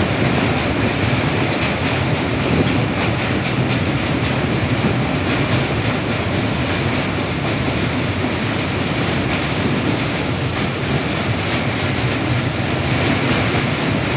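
Train running across a steel truss railway bridge, heard from aboard: a steady rumble of wheels on rail with a faint regular clicking from the rail joints.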